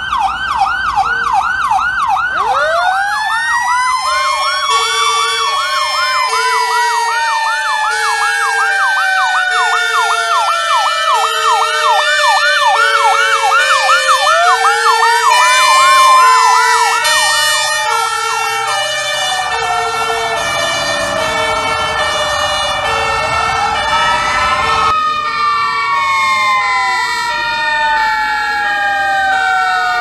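Fire-truck sirens sounding together. A fast electronic yelp opens; a mechanical Q siren winds up, then falls slowly, and winds up again; and a two-tone horn alternates high and low about once a second. Near the end the sound cuts abruptly to another siren wailing up and down.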